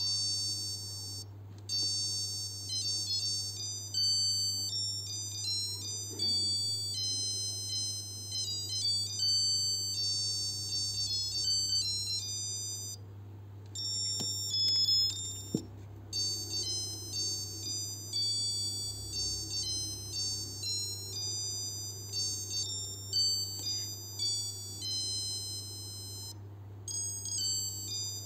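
Casio H-104 melody alarm watch playing electronic tunes through its piezo buzzer: high, thin beeping notes strung into melodies, with a few short breaks between tunes. Two faint clicks come in a pause about halfway through.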